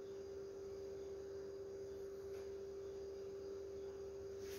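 A faint, steady hum on a single tone over quiet room noise.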